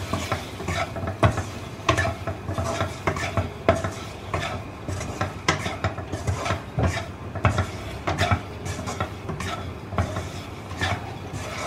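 A utensil stirring and scraping in a pan, turning scored boiled eggs through thick masala as it fries, with light sizzling. The spoon clicks irregularly against the pan.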